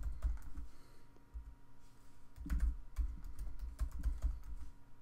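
Typing on a computer keyboard: a quick run of keystrokes at the start, a pause of nearly two seconds, then more runs of keystrokes.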